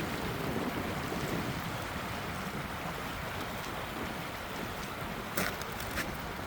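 Steady rushing of Minnehaha Creek flowing through snow, with two brief clicks near the end.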